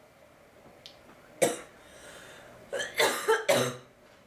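A girl coughing: one sharp cough about a second and a half in, then a quick run of three or four coughs near the end.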